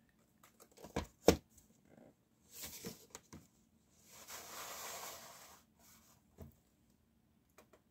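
Handling a VHS tape in its cardboard sleeve: a few light taps and clicks, then a soft scraping rustle lasting about a second and a half, four seconds in, as the plastic cassette slides out of the sleeve.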